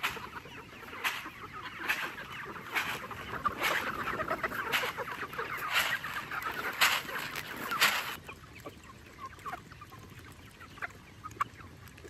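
A large flock of free-range chickens clucking and chattering as they feed on dried corn. For the first eight seconds a short rustling swish comes about once a second as corn is thrown from a bucket; after that only the clucking and small ticks of pecking remain.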